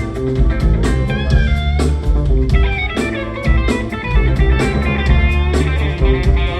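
A band playing a bluesy groove: an electric guitar lead with bending notes over bass and drum kit.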